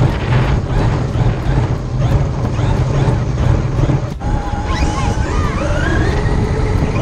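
Background music with a steady beat and heavy bass. About four seconds in there is a short break, then high tones glide up and down.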